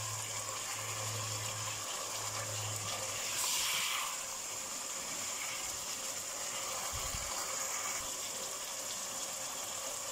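Chicken, tomato and onion masala sizzling steadily in a pot on the stove while it is stirred with a silicone spatula, the onion frying down into the masala (bhuna).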